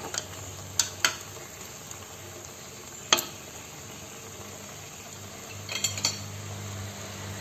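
Chicken pieces sizzling faintly as they are stir-fried in an aluminium pot, turned with chopsticks and a metal spoon, with a few sharp clinks of the utensils against the pot; the loudest is about three seconds in. A low steady hum comes in near the end.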